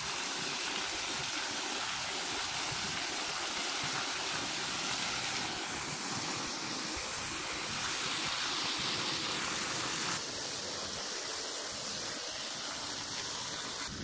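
Water pouring steadily through the spillway openings of a small stone hill dam and splashing into the pool below.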